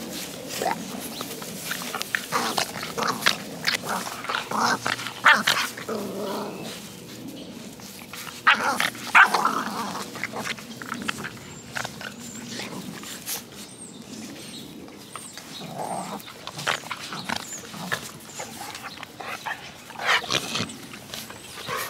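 American bully puppies play-fighting, growling with a few short high yelps, loudest about nine seconds in, over scuffling in dry grass.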